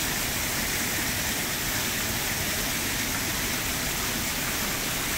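Steady rush of fountain water splashing into the plaza's reflecting pool, a constant even hiss that does not change.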